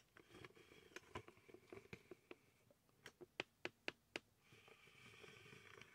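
Near silence: room tone with a faint hiss and a quick run of about six light clicks a little after halfway through.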